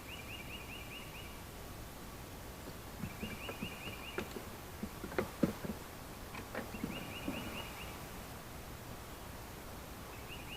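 A bird repeating a short, fast, high trill about every three seconds, over light knocks and rustles of wooden beehive frames being handled.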